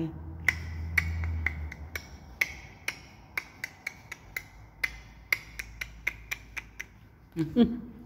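African grey parrot climbing over a metal wire cage top, its beak and feet tapping and gripping the bars: a string of sharp, irregular clicks with a slight ring, a few a second. A brief, louder voice-like sound comes near the end.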